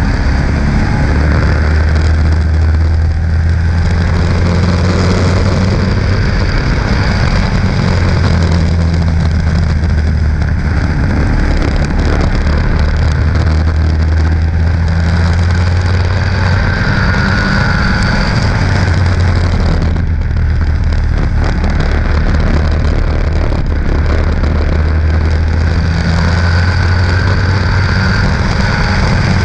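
Stock car's engine running hard at racing speed, heard from a camera mounted on its hood: a loud, steady drone with a rush of wind noise, easing briefly a few times, most clearly about twenty seconds in.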